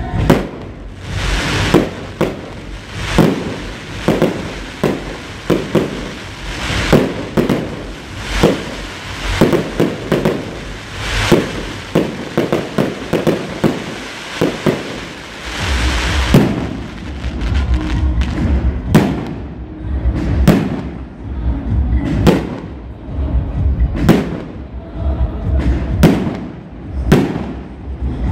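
Fireworks display: a rapid run of bangs and crackling bursts, dense through the first half, then spaced at roughly one to two a second with deeper booms.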